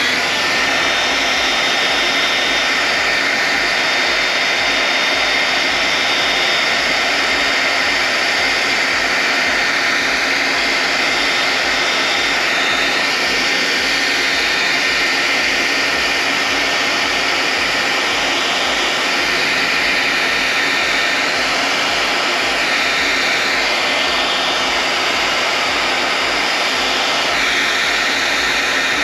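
Hand-held hair dryer running steadily, a loud even rush of air with a thin high whine from its motor.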